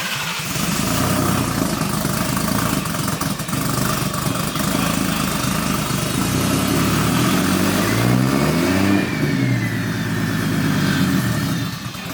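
Lexus IS300's 1.5JZ turbo inline-six running just after starting, idling, then revved once about eight seconds in, the pitch rising and falling back to idle.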